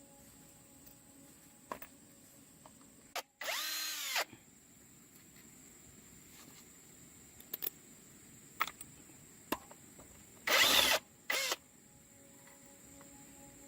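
A handheld power tool run in short bursts: a brief run about three seconds in whose pitch rises and then falls, and a louder burst near eleven seconds with a shorter one right after. Small scattered clicks and knocks fall between.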